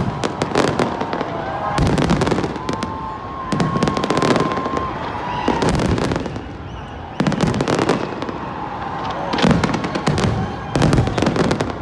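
Fireworks display: loud volleys of bursting shells and crackling come in clusters every second or two, with deep booms under them.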